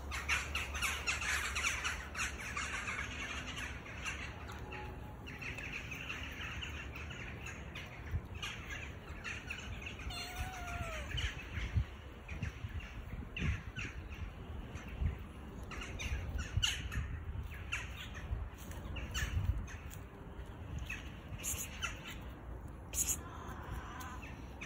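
Birds chirping and squawking, thickest in the first couple of seconds and again a few seconds later, with scattered short clicks. A single short meow about ten seconds in.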